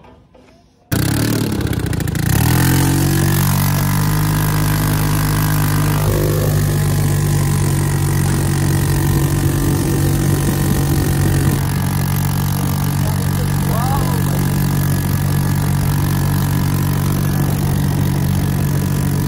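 Off-road buggy engine catching suddenly about a second in and revving up, then running loud at a steady pitch while the buggy drives.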